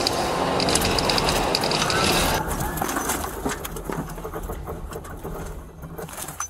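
Steady road and engine noise heard from inside a police car at high speed, with scattered short clicks. About two and a half seconds in it drops off abruptly to a duller, quieter noise.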